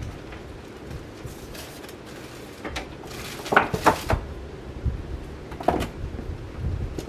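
Casablanca Panama ceiling fan with an XTR 200 motor running fast, the blades moving air with a steady rush. A few short, irregular knocks come through, about halfway and again later.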